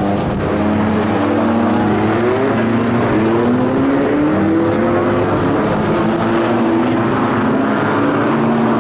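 Several Renault Twingo race cars' small four-cylinder engines running hard together, their overlapping engine notes rising in pitch as the cars accelerate past, then levelling off.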